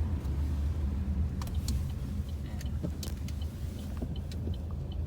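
A car driving: a steady low road rumble with scattered light clicks and small rattles.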